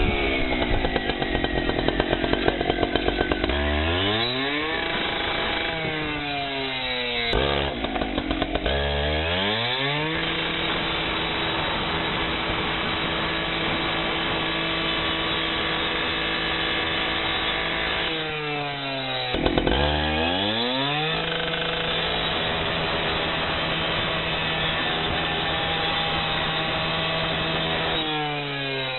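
Cut-off saw with a diamond rescue blade cutting hurricane glass, its engine held at a steady high speed for long stretches. Three or four times the engine drops off and revs back up.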